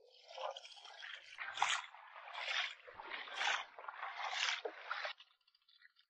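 Rubber boots wading through shallow seawater over sand, a swishing splash with each step about once a second, stopping about five seconds in.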